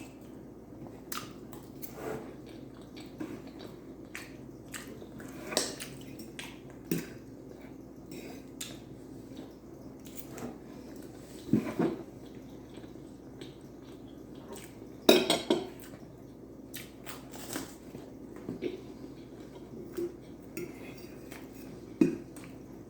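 Cutlery clinking and scraping against a dish while scooping beefaroni, in scattered irregular clicks. There is a louder clatter about two-thirds of the way through.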